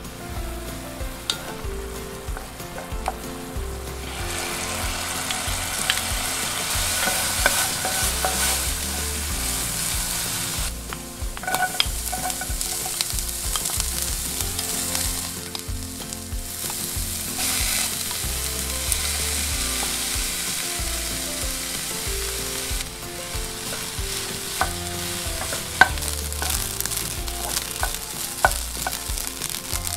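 Food sizzling as it is stir-fried in a nonstick pan: Chinese sausage slices, onion and garlic, then cooked rice, stirred and turned with a wooden spoon. The sizzle swells and fades several times, with scattered clicks of the spoon against the pan.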